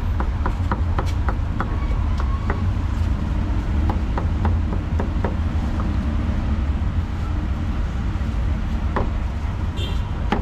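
Cleaver chopping braised pork on a thick wooden chopping board: quick, irregular knocks, about three a second, over the steady low rumble of street traffic.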